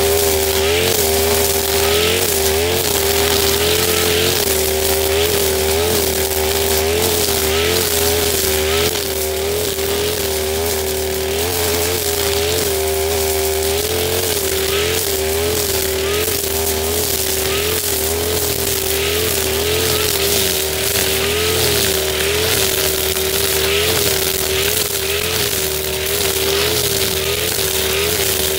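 Husqvarna 542RBS backpack brush cutter's two-stroke engine running steadily, its pitch wavering slightly about once a second as the 3.5 mm nylon trimmer line swings through thick grass, over a constant hiss and crackle of slashed grass.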